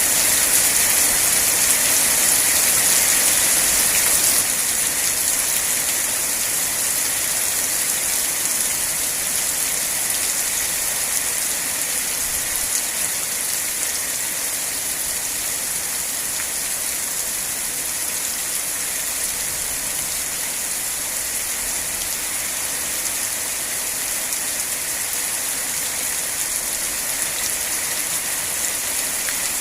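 Steady rain falling, an even hiss of drops that eases slightly about four seconds in and then holds steady.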